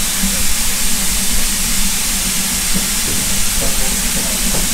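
BR Standard Class 4 steam tank locomotive standing, hissing steam steadily over a low steady hum.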